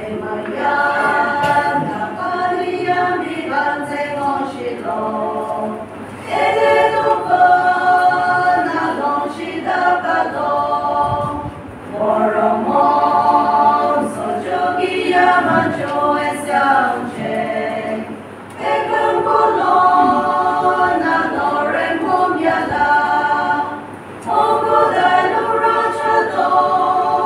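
A choir singing a cappella in phrases of about six seconds, with brief pauses for breath between them.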